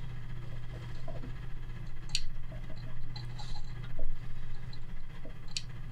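Faint scraping and a few light clicks as a plastic burnishing tool works wrapping thread against a fishing rod blank, over a steady low hum. Two sharper clicks come about two seconds in and near the end.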